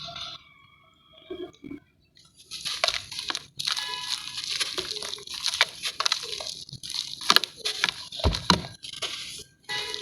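Sand-cement cakes crumbling in water: a dense run of gritty crunching and crackling that starts about two seconds in and stops shortly before the end.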